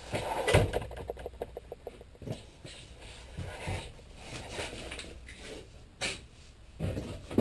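A large plywood template being lifted and slid off a sheet of aluminum: irregular knocks, scrapes and rattles, the loudest knock about half a second in.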